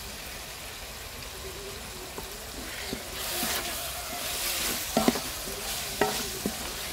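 Onion-and-tomato masala sizzling in oil in a metal pot as a little water goes in, stirred with a wooden spatula. The hiss grows louder from about three seconds in, and the spatula clicks against the pot a few times near the end.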